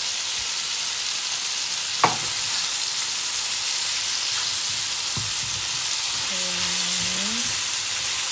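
Meatballs, mushrooms and onions sizzling steadily in hot oil in a frying pan as they are stirred with a silicone spatula. One sharp knock about two seconds in.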